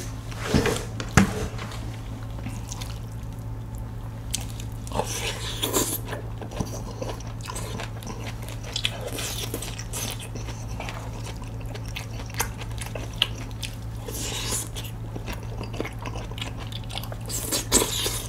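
Close-up eating: biting into and chewing crispy fried dumplings in sweet-and-sour sauce, with crunching and wet chewing in short irregular bursts over a steady low hum.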